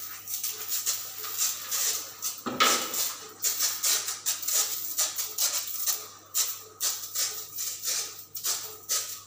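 Rhythmic hissing bursts of insecticide spray from a hand-pumped brass pressure sprayer and its lance, about two a second. A single knock about two and a half seconds in.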